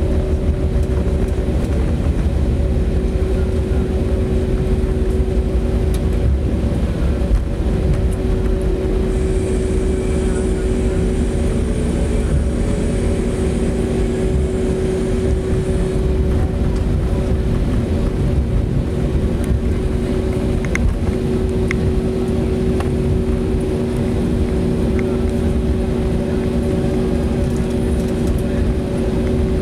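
Cabin noise of an Airbus A320neo rolling on the ground after landing: a steady low rumble with a steady hum of several tones from its Pratt & Whitney PW1100G geared turbofans. A faint high whine comes in about nine seconds in and lasts several seconds.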